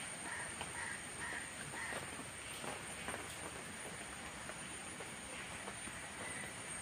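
Garden ambience: steady background noise, with a short run of about four brief bird calls in the first two seconds.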